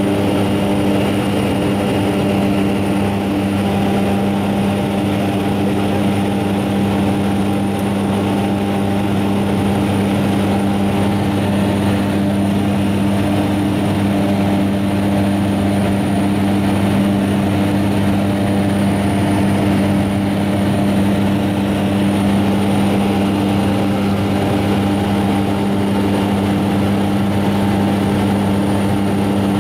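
Propeller aircraft's engine heard from inside the cabin: a steady drone with a constant low hum that holds the same pitch throughout.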